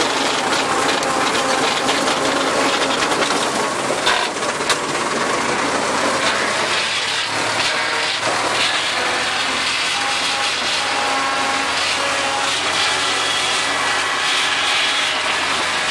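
Tractor engine running under load while a PTO-driven rotary tiller churns grass into the soil: a loud, steady mechanical din, with a couple of knocks about four seconds in.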